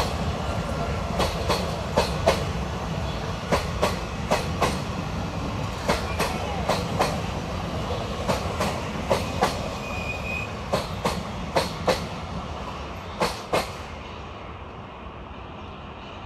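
Passenger train coaches rolling past, their wheels clacking over the rail joints in quick pairs over a steady rumble. The clacks stop and the rumble fades as the last coach moves away near the end.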